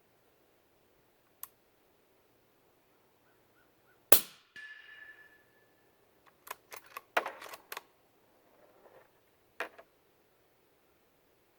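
One shot from a suppressed bolt-action 300 Blackout rifle firing subsonic rounds through a 30-calibre Silencerco Omega can: a single sharp crack about four seconds in, followed by a brief ringing tone. A quick run of metallic clicks follows a couple of seconds later, the bolt being worked to chamber the next round, and there are a few lone clicks before and after.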